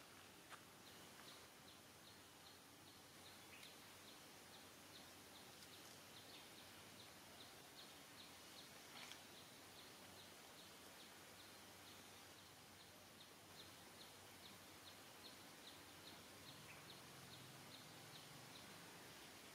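Near silence: faint outdoor ambience with a high-pitched chirp repeating steadily a few times a second.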